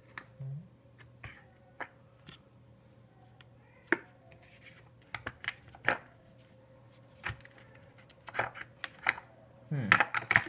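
Scattered clicks and knocks of steel tool pieces against a hard plastic tool case as a tool is worked loose from its moulded slot. The clatter gets busier near the end.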